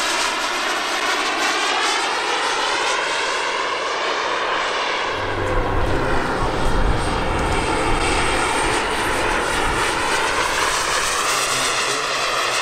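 Radio-controlled model airplane's engine running continuously in flight, its pitch wavering up and down as it moves through the sky, with the sound swelling a little about halfway through.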